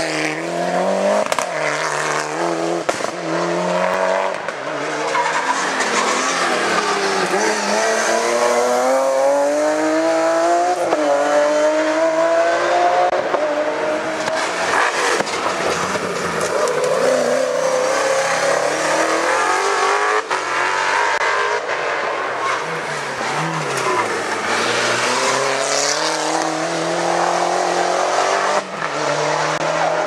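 Hillclimb race cars accelerating hard one after another out of a tight bend, among them a Mitsubishi Lancer Evolution rally car and a BMW M3 race car. Their engines rev up in pitch and drop back at each gear change, several times over, with tyres squealing in the corner.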